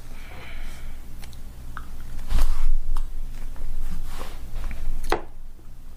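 Irregular clicks, knocks and light handling noise over a steady low hum, with a louder thump about two and a half seconds in and a sharp click near the end.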